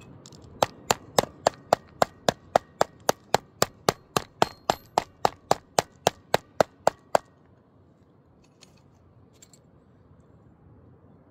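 A hammer tapping a steel track rail in quick, even strokes, about four a second, for over six seconds, stopping about seven seconds in. A few faint clicks follow. The rail is being knocked sideways back into gauge.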